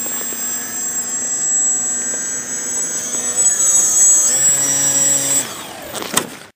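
Small RC plane's electric motor (Exceed RC 300 Alpha) and 7x5 APC propeller whining in flight. About four seconds in the pitch glides down and settles lower as the throttle is eased back, then the whine fades. A sharp click comes near the end.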